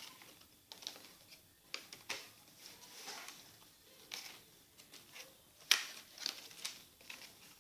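Plastic disc case and packaging being handled: scattered light rustles and clicks, with one sharper click a little before six seconds in.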